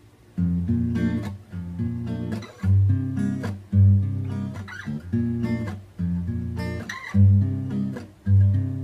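Acoustic guitar strummed in a steady rhythm, starting about half a second in: the instrumental introduction before the vocal comes in.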